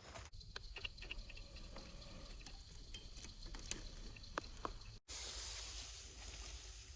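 Scattered light crackles and ticks of footsteps through dry grass and brush, over a low rumble of wind on the microphone. About five seconds in the sound cuts abruptly to a steadier hiss.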